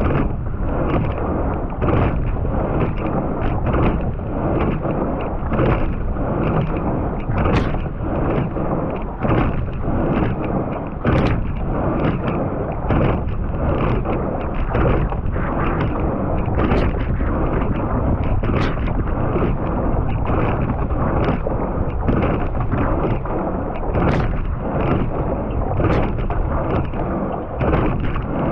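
Wind buffeting the microphone and water rushing past the hull of a racing quad scull, with a sharp click from the oar in its oarlock about every two seconds, in time with a stroke rate of 32–33 a minute.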